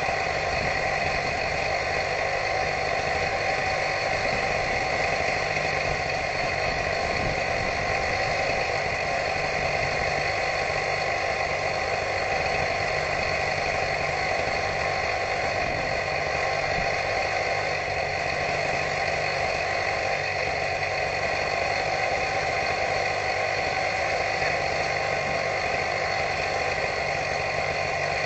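Steady drone of a motor running continuously, with a constant whine and no change in speed or load.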